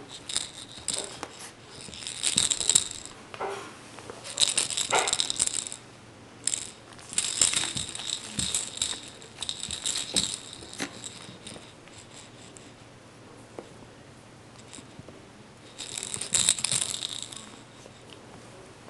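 Chihuahua shaking and tugging a plush flamingo toy: bursts of rattling and scuffling come in short spells, with a quieter stretch about two-thirds of the way through.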